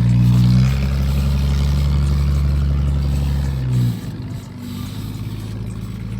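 Off-road truck engine running steadily, then easing to a lower, quieter note about four seconds in.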